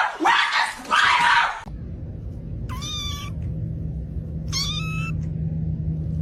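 A few loud, harsh bursts, then a domestic cat meowing twice, briefly, over a steady low rumble.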